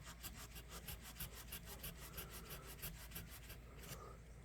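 600-grit sandpaper rubbed quickly back and forth down in the narrow channels of an old pocket knife, a faint, even scratching at about seven strokes a second that stops near the end.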